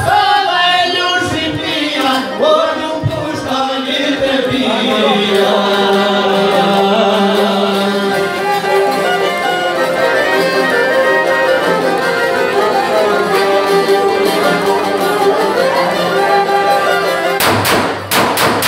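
Live folk music: a violin plays a melody over a plucked long-necked lute, with a man singing in the first few seconds. A few sharp strikes come near the end.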